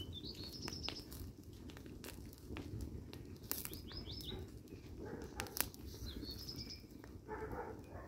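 Small fire of burning ballet flats crackling, with scattered sharp pops over a steady low rumble. A songbird repeats a short chirping phrase three times.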